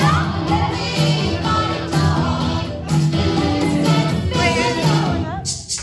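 Pop song playing with a steady beat, a repeating bass line and a sung vocal melody; it breaks off abruptly near the end.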